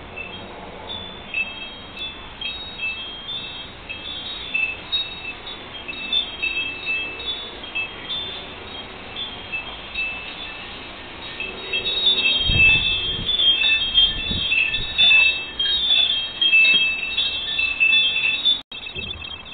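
Wind chime ringing in a breeze, light high notes tinkling irregularly. About twelve seconds in a gust sets it ringing louder and busier, with a low rumble of wind on the microphone. The sound cuts off suddenly near the end.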